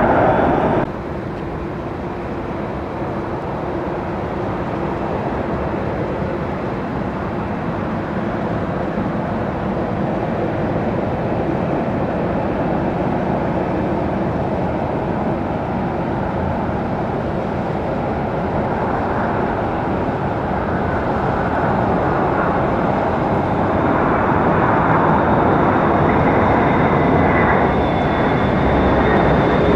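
Jet airliner engines running: a steady, even rushing noise that drops abruptly about a second in, then grows slowly louder toward the end.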